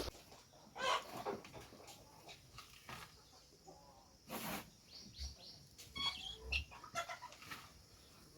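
Young chickens chirping and clucking in short high calls, bunched about five to six seconds in, between a few brief scraping noises.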